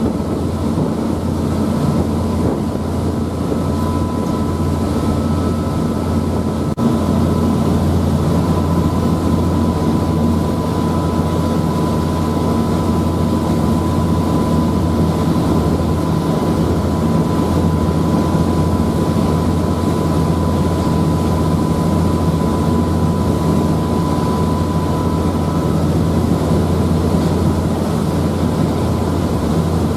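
Passenger ferry's engines droning steadily, heard on board, with a thin steady whine above the low hum.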